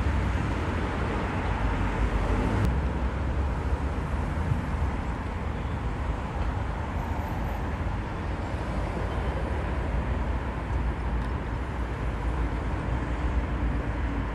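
Steady low rumble of a car driving along the road, engine and road noise running evenly.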